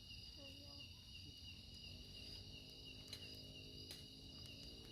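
Faint, steady chorus of forest insects chirring, with a fine pulsing in the highest notes and a couple of light clicks near the end.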